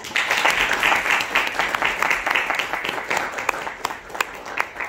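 Audience applauding: a dense patter of many hands clapping that thins out into scattered claps near the end.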